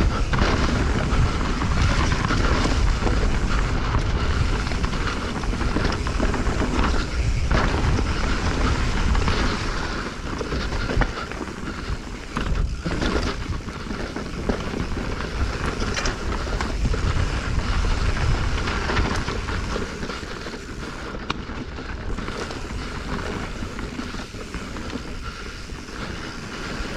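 Wind rumbling on the camera microphone during a fast mountain bike descent on dirt singletrack, with tyre noise and scattered clicks and knocks from the bike rattling over the trail. It is louder in the first half and eases off later.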